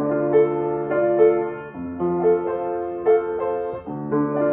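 Baldwin upright piano being played: a gentle melody over held bass notes that change about every two seconds.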